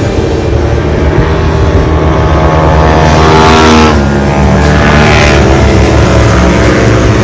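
A pack of racing motorcycles running through a sweeping curve, their engines rising in pitch twice around the middle as riders accelerate, over a steady low rumble.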